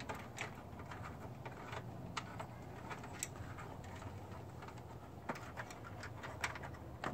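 Faint, scattered light clicks and handling noise as a ground wire and its connector are fitted by hand at a car battery, over a steady low hum.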